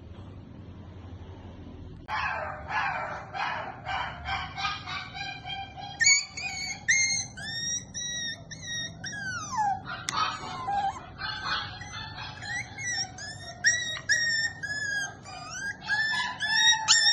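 A small pet animal crying out in a rapid string of short, high, whining squeals, starting about two seconds in and rising higher in pitch partway through.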